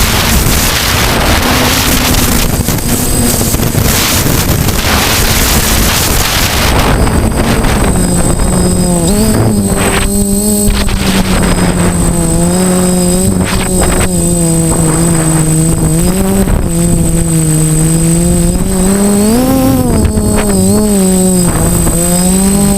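DJI F450 quadcopter's motors and propellers humming, the pitch wavering up and down with throttle changes. For the first several seconds wind buffeting on the microphone covers the hum.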